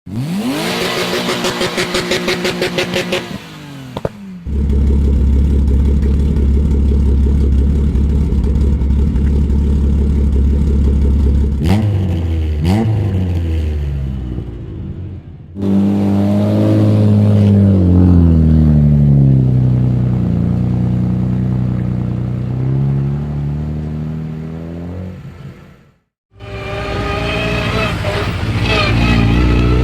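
Rally car engines in a string of separate recordings: first a hard revving engine with a stuttering beat, then a long steady low rumble broken by two sharp cracks, then an engine whose note climbs and slowly falls away, and finally another rising acceleration.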